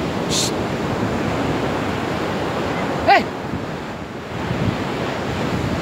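Ocean surf breaking and washing up on a sandy beach, a steady rush with wind buffeting the microphone. A brief high-pitched shout cuts through about three seconds in.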